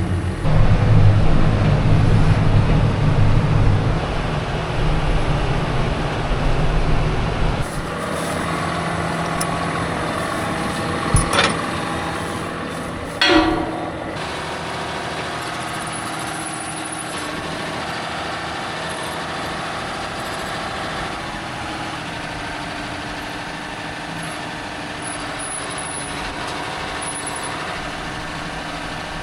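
A tractor engine running, loud for the first several seconds, then quieter and steady. Two short clanks come about eleven and thirteen seconds in.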